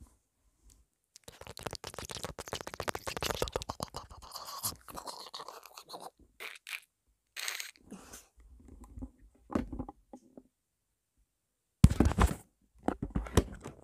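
Close scratching and rustling on a clip-on microphone as it is handled, with a sharp loud bump about twelve seconds in.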